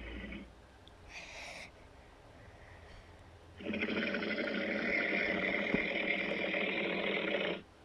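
Custom-made Godzilla roar sound effect: a short burst about a second in, then one long, harsh roar without a clear pitch that holds steady for about four seconds and cuts off suddenly near the end.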